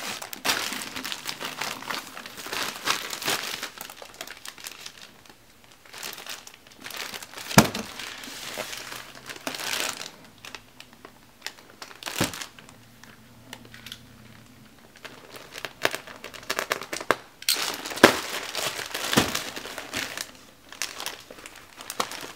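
Plastic film wrapping on packs of disposable diapers crinkling and rustling in irregular bursts as the packs are handled and moved about, with a few sharp clicks.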